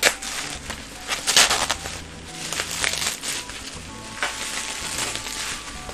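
Plastic wrapping crinkling and crackling in irregular bursts as a sealed trading-card tin is unwrapped, with a sharp crackle at the very start and the loudest burst about a second and a half in. Quiet background music plays underneath.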